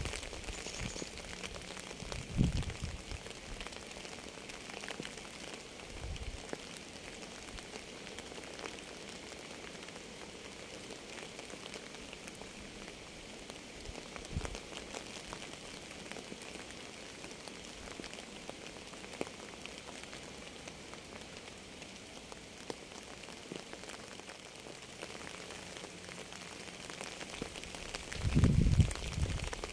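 Steady rain falling on a surface, a dense patter of small drop ticks, with a few low thumps scattered through it and a louder low one near the end.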